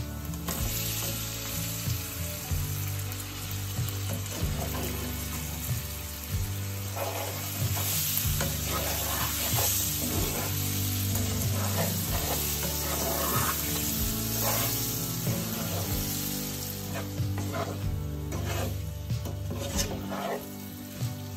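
Steamed sour cherries sizzling in a pan of hot oil and spice masala for cherry pickle, tipped in near the start and then stirred with a wooden spatula: a steady sizzle with repeated scraping strokes of the spatula against the pan.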